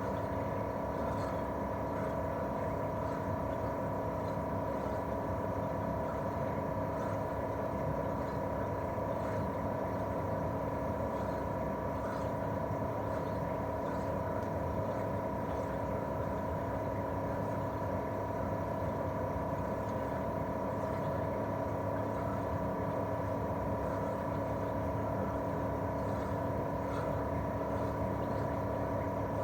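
Daikin R28RMV mini-split outdoor unit running in cooling mode: its twin-cylinder swing compressor and propeller fan make a steady hum with several constant tones over an even whoosh.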